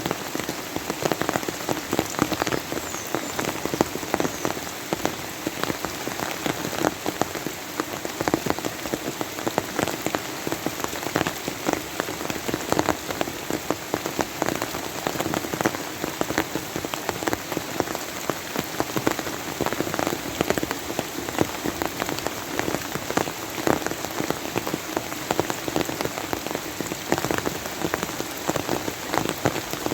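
Steady rain falling, a dense even hiss with many distinct drops pattering on a hard surface.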